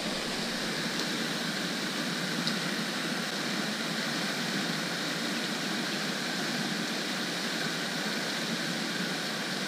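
Steady rushing hiss of falling water from spray fountains splashing back onto the pond's surface.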